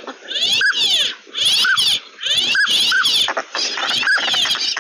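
Flock of northern pintail drakes whistling: short whistles that rise and fall, about one a second, over a layer of higher overlapping calls, growing denser in the last second or so.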